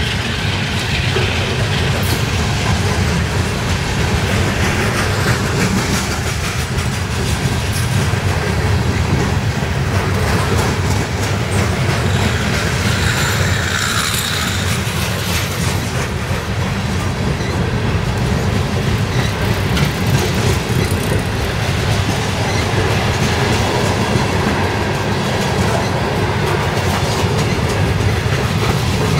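Freight train of empty coal hopper cars rolling past close by: a steady loud rumble of steel wheels on the rails, with clicking as the wheels cross the rail joints.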